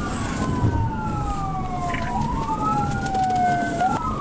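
Police car siren on wail, its pitch sweeping slowly up and down, with two wailing tones rising and falling out of step, over a steady low road and engine rumble.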